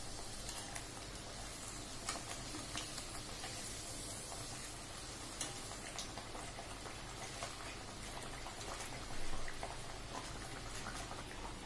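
Pearl millet vadas deep-frying in hot oil in a kadai, a steady sizzle with small crackles, while a slotted spoon turns them. The sizzle swells briefly about nine seconds in.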